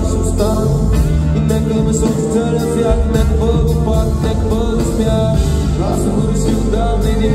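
Live band music played loud through a concert PA, with a steady beat, a sustained bass line and a male voice singing.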